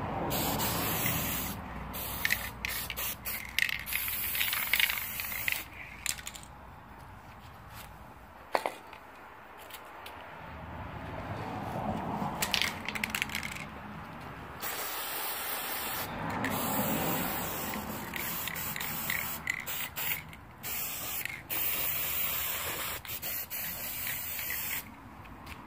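Aerosol can of spray paint hissing in repeated bursts as the nozzle is pressed and released, with short pauses between sprays.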